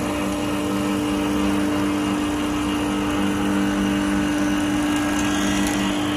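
CNC wood lathe cutting a spinning wooden column: the cutting head runs steadily with a held two-tone motor hum and a hiss of wood being cut.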